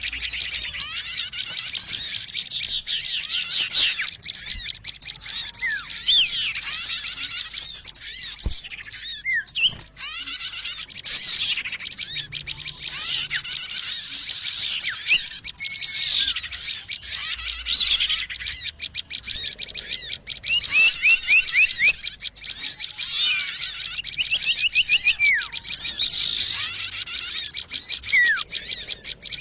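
A dense, busy chorus of many small birds chirping and twittering at once, with runs of quick repeated rising notes, played as a lure call to draw in small birds.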